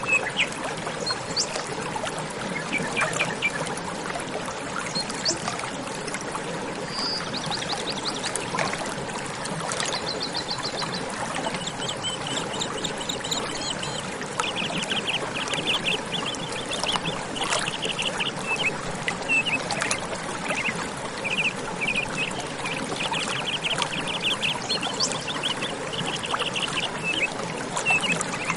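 Running water trickling and pouring steadily, with small birds chirping in quick repeated trills over it, more often in the second half.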